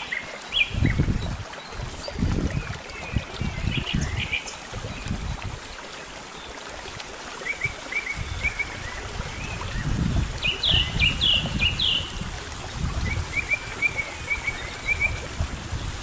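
Small rocky mountain stream running, with songbirds chirping in quick runs of short notes, a run of four brighter chirps about ten seconds in. Gusts of wind rumble on the microphone now and then.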